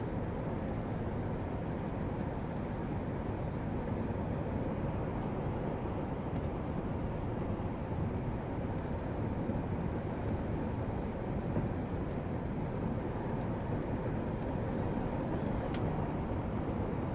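Steady roar of an Airbus A380 airliner's engines and airflow, heard from inside the passenger cabin, even and deep with no distinct events.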